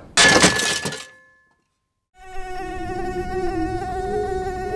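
A loud burst of noise lasting about a second, then a second of silence, then a multirotor drone's motors and propellers buzzing steadily, their pitch wavering slightly as it flies.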